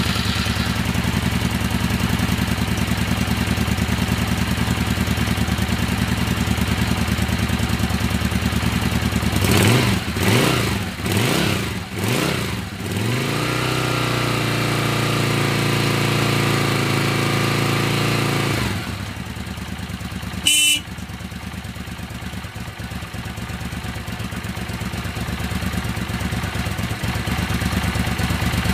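1988 Suzuki Intruder 750's liquid-cooled 45-degree V-twin idling just after a cold start. About ten seconds in, the throttle is blipped about four times, then held at steady higher revs. Near nineteen seconds it drops back to a lower idle, with a short sharp noise about a second later.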